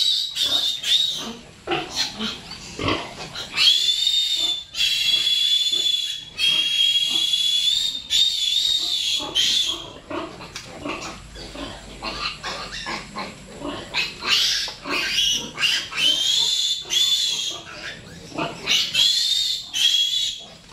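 Piglet squealing while being held and handled: long, high-pitched squeals in three bouts, the first lasting several seconds, with shorter squeals between.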